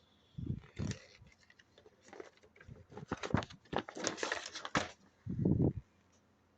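Paper and plastic packaging being handled: a dense run of sharp crinkles and rustles through the middle, with a few short low sounds near the start and again near the end.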